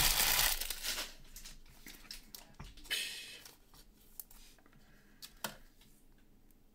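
Trading cards and their packaging being handled: a rustling swish right at the start, another about three seconds in, and light taps and clicks between.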